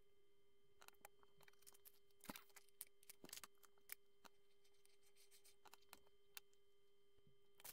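Faint clicks and taps of small LEGO plastic pieces being handled and pressed together, scattered irregularly and loudest in a cluster a couple of seconds in, over a faint steady hum.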